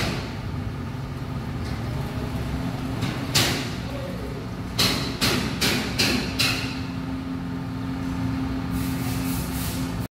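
An engine running at a steady idle, with a series of sharp clicks and knocks: one about a third of the way in, a cluster in the middle and a quick run near the end. The sound cuts off suddenly at the very end.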